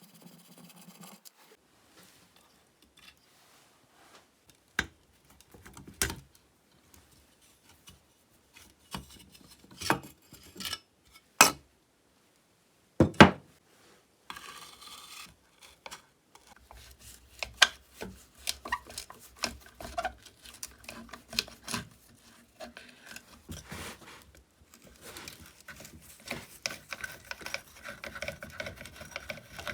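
Hand tools and small metal parts clicking, knocking and scraping as a chainsaw is being taken apart. There are a few separate sharp knocks through the first half, the loudest just before the middle, then busier small clatter and rubbing in the second half.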